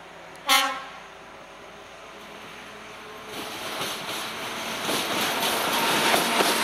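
ČD class 750 diesel-electric locomotive hauling a passenger train. It gives a short, loud horn toot about half a second in. From about three seconds in, the running noise of the train rises steadily as it draws close, with wheel clicks over the rail joints toward the end.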